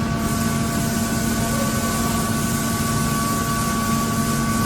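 Steady mechanical hum of running machinery, with a constant low tone and a thin higher whine over an even noise, holding unchanged.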